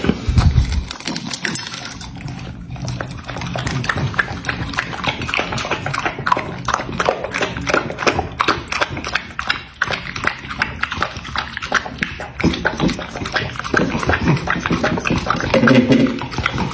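Bulldog lapping and smacking at raw egg yolk on a metal plate: quick wet licking clicks, several a second, with a louder low knock in the first second.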